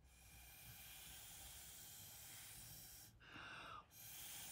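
Faint steady hiss of breath blown through a drinking straw, pushing watered-down paint across paper, for about three seconds. A short breath follows, then another blow starts near the end.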